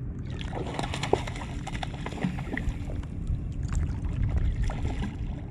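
Shallow seawater sloshing and lapping around a camera held just above the waterline, with a steady low rumble of water on the microphone and scattered light ticks.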